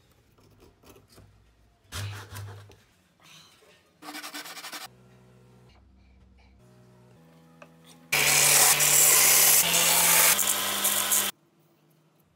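Hand work on small plywood parts: quiet scrapes and taps, a short rasping scrape about four seconds in, then from about eight seconds in some three seconds of loud, steady rubbing like wood being sanded, which cuts off suddenly.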